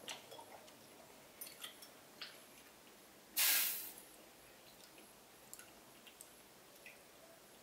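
A slurping sip of hot tea from a small glass, one loud hissing slurp about three and a half seconds in, among a few light clicks of glassware.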